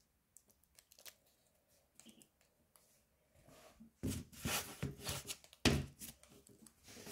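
Paper and clear plastic tape crinkling and rustling as a homemade paper figure is handled, in irregular bursts from about four seconds in, after a few faint clicks. A sharp knock stands out near six seconds.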